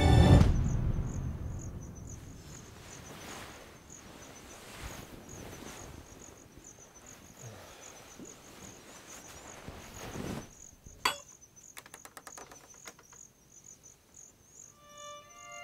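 Insects chirping steadily in a high, finely pulsing trill, with soft rustling, one sharp click about eleven seconds in and a quick run of fainter clicks after it.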